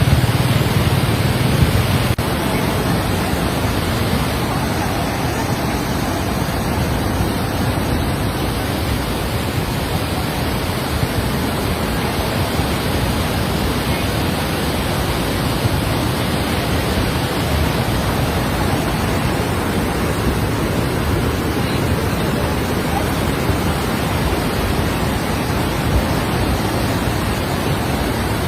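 Steady rush of heavy flowing water, the sound of a river in flood. A low hum fades out in the first two seconds.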